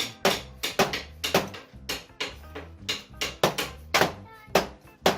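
Background music with a steady drum beat, about two hits a second, over a bass line.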